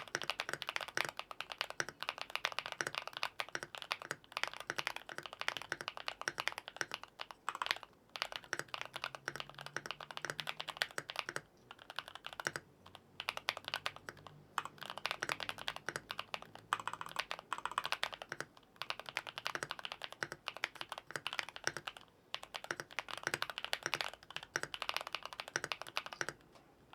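Fast, continuous typing on a LUMINKEY98 98% custom mechanical keyboard: a dense run of key clacks, broken by a few brief pauses.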